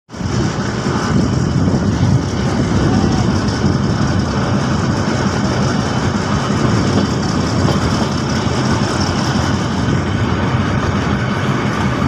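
Diesel locomotive engine running, a steady loud rumble with no breaks.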